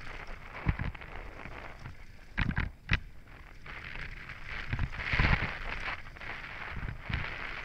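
Downhill mountain bike descending a dry, stony dirt trail: tyres rolling over loose gravel with a steady rushing hiss, and sharp knocks and rattles from the bike over bumps, clustered about two and a half to three seconds in and again around five seconds.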